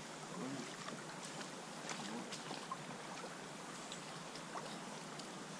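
River water flowing and lapping around a drifting inflatable PVC boat: a steady rush with scattered small ticks and plops.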